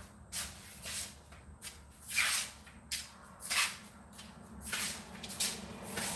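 A person moving about close by: about eight short rustling, scuffing swishes, the loudest a little over two and three and a half seconds in.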